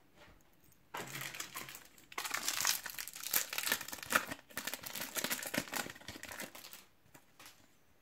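Plastic wrapper of a Topps Match Attax trading-card pack crinkling as it is torn open and handled. It starts about a second in, dips briefly, then runs on louder until near the end.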